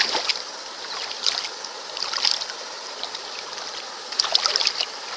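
Water splashing and trickling in several short bursts, over a steady watery hiss.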